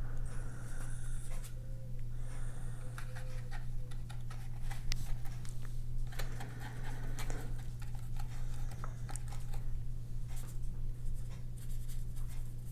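Paintbrush loaded with acrylic gouache stroking and dabbing on sketchbook paper: irregular soft scratchy strokes and small taps, with the brush working the paper palette near the end. A steady low hum runs beneath.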